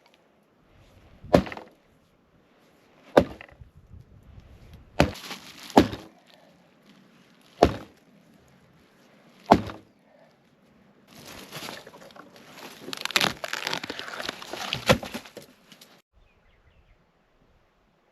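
Dry wood snapping: six sharp cracks a second or two apart, then a dense run of cracking and crackling lasting about five seconds.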